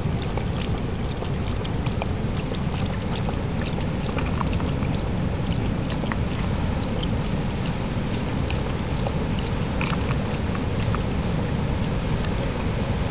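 A German shepherd lapping water from the plastic trough of a travel water bottle, a run of small irregular wet clicks, over a steady low rumble of wind on the microphone.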